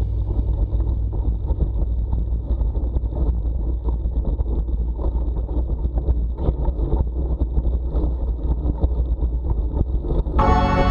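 Wind buffeting a bike-mounted camera's microphone, over the rumble of a cyclocross bike's tyres and drivetrain riding along a wet paved road. Music with a violin comes in just before the end.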